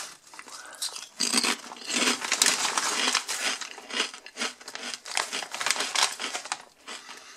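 Foil-lined potato chip bag crinkling and rustling in irregular bursts as it is handled.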